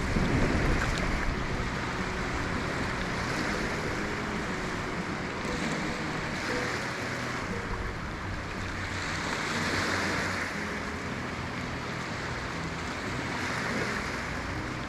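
Surf washing onto the shore on a stormy day: a steady rush of waves that swells and eases, loudest near the start and again about two-thirds of the way through.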